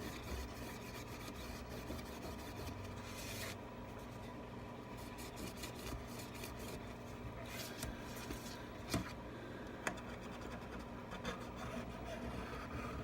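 Metal scraper tool scraping old glue residue, wetted with Goo Gone, off the inside edge of an iPad Pro 10.5's frame: faint, irregular scratching strokes, with two small sharp clicks near the end.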